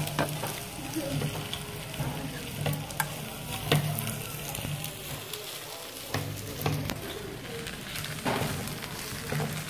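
Food sizzling in a steady hiss, with scattered sharp clinks of a metal spoon and chopsticks against bowls.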